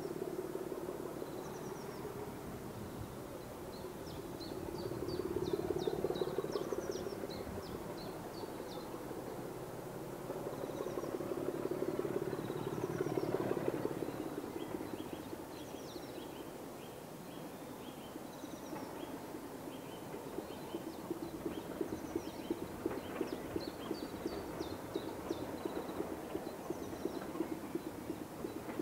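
A diesel locomotive's engine running in the distance, swelling twice and then settling into a fast, even pulsing as the locomotive approaches. Small birds chirp throughout.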